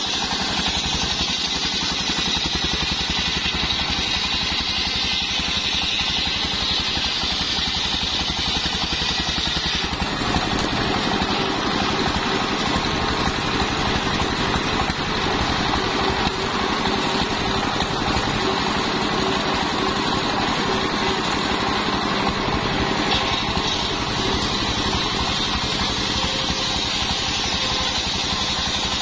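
A stationary single-cylinder diesel engine runs steadily, belt-driving an 85 cm circular saw blade as it rips sengon boards. A high blade whine and the rasp of the cut sit over the engine's drone.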